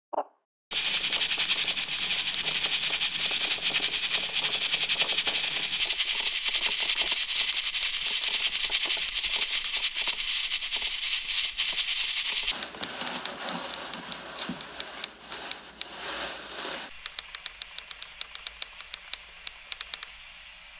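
Electric rice cooker cooking: a dense crackling sizzle that changes texture partway through, thins into a run of sharp ticks about four or five a second near the end, then gives way to a faint steady hiss.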